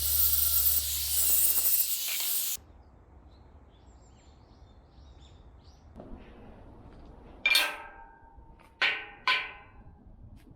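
A steady hiss over a low hum cuts off abruptly about two and a half seconds in. After a quiet stretch with faint bird chirps, three sharp clanks that ring like struck steel come near the end.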